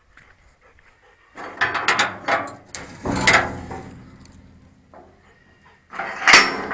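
Steel rear door of a welded box trailer body being unlatched and swung open: a run of metal squeaks and clanks from the latch and hinges for about two seconds, then another loud clank near the end.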